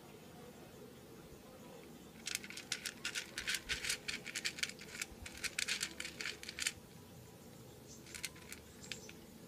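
A cat eating dry kibble from a metal feeder tray: a run of quick, crisp crunches lasting about four seconds, then a few more near the end.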